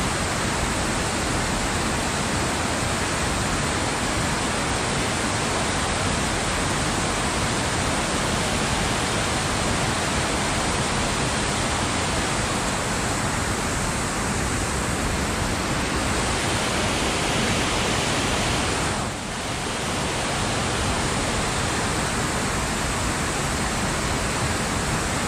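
Steady rush of water pouring over a dam's waterfall, with a brief dip in loudness about three-quarters of the way through.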